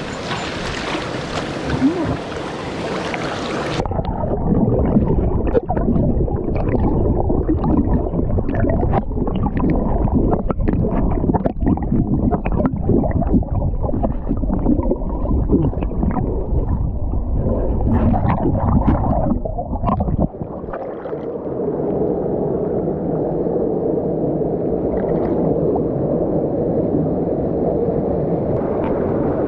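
Mountain-stream water: a rushing hiss for the first few seconds, then it changes suddenly to a muffled, bass-heavy gurgling and sloshing with scattered knocks and splashes. About two-thirds of the way through the deep part drops out, leaving a steadier muffled wash of water.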